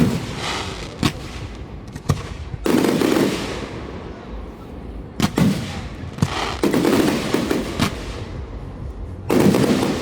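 Aerial fireworks shells bursting: several sharp bangs at irregular intervals, each followed by a long rumbling, crackling tail.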